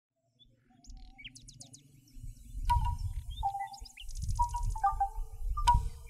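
Birds chirping and trilling. From about three seconds in, the hollow wooden notes of a bamboo wind chime's tubes knocking together join them, over a low rumble.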